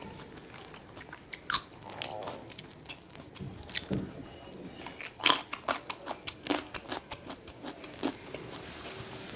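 A person biting and chewing food, with sharp crunching clicks; the loudest come about one and a half, four and five seconds in, followed by a run of quicker crunches.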